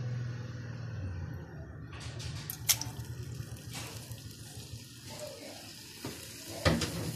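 Raw boneless chicken cubes tipped into hot oil in a non-stick pan, starting to sizzle about two seconds in as a steady hiss, with a few sharp clicks and a louder knock near the end.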